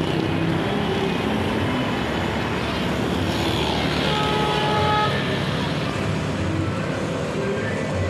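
Road traffic passing, with steady engine and tyre noise; a faint, short horn note sounds about four seconds in.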